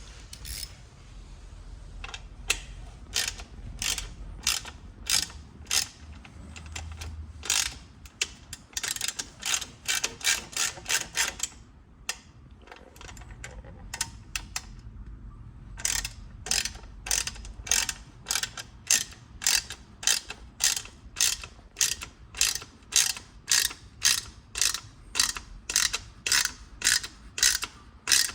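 Socket ratchet wrench clicking in quick, even strokes, about two to three clicks a second, as it turns a bolt, stopping for a few seconds about halfway through and then starting again.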